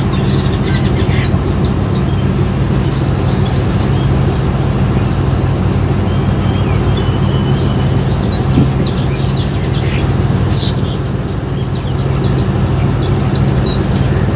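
A caged songbird chirping in many short, quick notes and sweeping whistles, with one louder note about ten seconds in, over the steady drone of the boat's engine.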